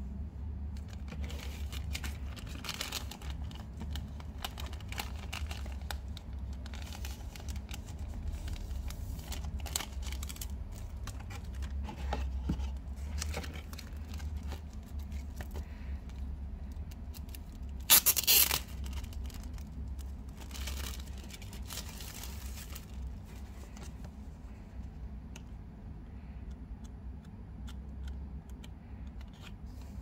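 Plastic shrink-wrap crinkling and rustling in irregular bursts as wrapped books are handled and lifted from a cardboard box, with one short, louder burst about eighteen seconds in. A steady low hum runs underneath.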